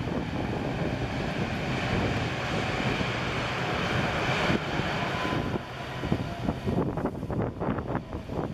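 Twin jet engines of a United Boeing 767-400ER running at high power as the airliner rolls down a wet runway, a steady rushing roar. From about five seconds in, gusts of wind buffet the microphone in choppy bursts.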